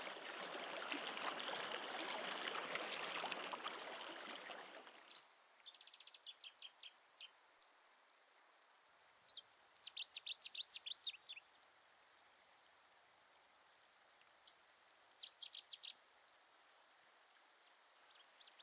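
River water rushing over a riffle, which cuts off abruptly about five seconds in. After that a faint hiss remains, and a small bird calls in several short, rapid runs of high chirps.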